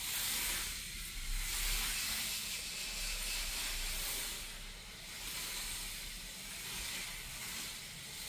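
K'nex roller coaster trains rolling along the plastic track, with some low noise from the model's motors. The sound is a mostly high-pitched rushing noise that swells and eases every few seconds as the trains run the course.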